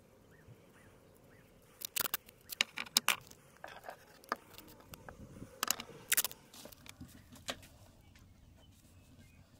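Masking tape being pulled and torn off the roll and pressed around an insulated cable: a run of sharp crackles and rips for about four seconds, loudest near the start, then a few light clicks of handling.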